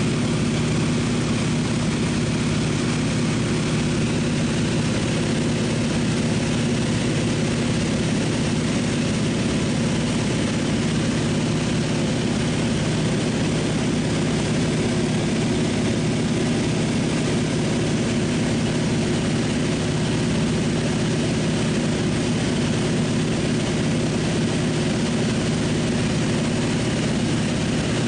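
Seaplane's propeller engine in steady cruise, heard from inside the cabin: an unchanging low drone over a wash of hiss.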